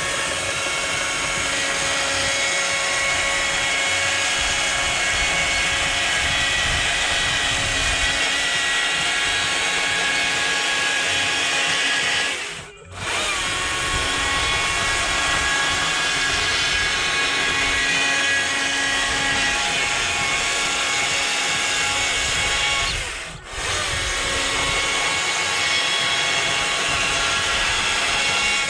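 Two-stroke chainsaw running steadily at high revs, carving into wood, with two brief breaks in the sound.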